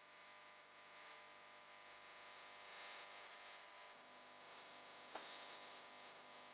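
Near silence: a faint steady hum and hiss, with one soft click about five seconds in.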